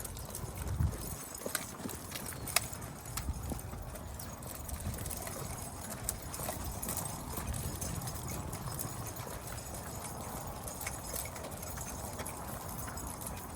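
Footsteps of a walker and a pack of leashed dogs on pavement: an irregular patter of steps with scattered short clicks.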